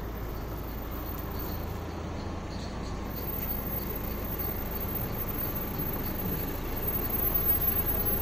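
A Mahindra XUV500 SUV creeping up at walking pace, its engine running low and steady, growing gradually louder as it draws up close.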